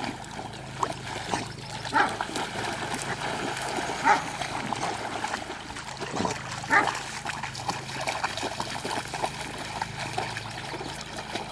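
Several dogs splashing and paddling through shallow pond water, with a few short barks spaced out over the stretch.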